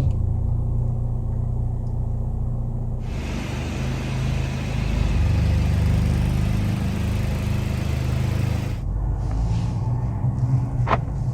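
Mercedes-AMG C43's turbocharged 2.0-litre four-cylinder engine giving a low, steady rumble as the car pulls away slowly in drive. A steady hiss joins for several seconds in the middle, and there is a brief high note near the end.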